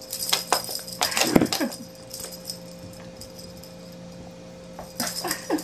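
Rattling and jingling of a feather wand cat toy being shaken in clusters, with a cat's short falling meows, one about a second and a half in and a few shorter ones near the end.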